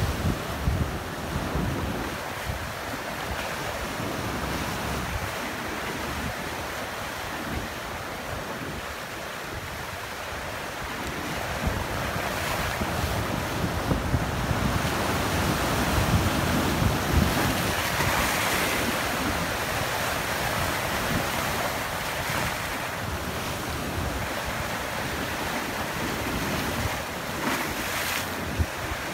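Sea waves breaking against a rocky shoreline and surf washing over the rocks, a continuous rushing that swells to a louder surge about halfway through.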